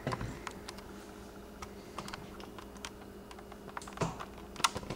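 Scattered light clicks and taps, two louder ones near the end, over a faint steady hum.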